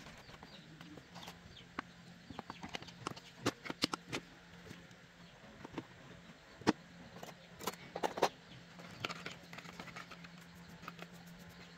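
Small metal parts clinking against one another and against a small cup as they are handled and scrubbed clean: a scatter of irregular sharp clicks. A faint steady low hum runs underneath.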